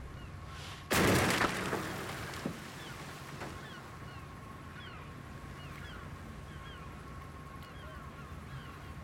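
Bow-mounted whaling harpoon cannon firing once about a second in: a loud blast that fades over about half a second. Afterwards seabirds call repeatedly in short falling notes over a steady hum.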